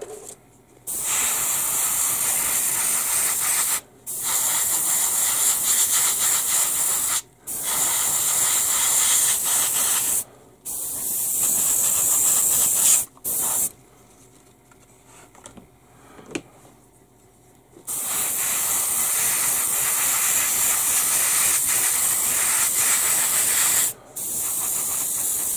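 Airbrush spraying unthinned acrylic paint: a loud, steady hiss that starts and stops sharply as the trigger is pressed and released, in runs of about three seconds with short breaks, a longer pause of about four seconds midway, then a run of about six seconds.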